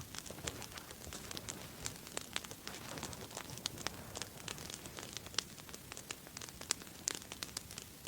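Wood fire crackling with irregular sharp pops and snaps, from a 'candle' log fire (Swedish torch).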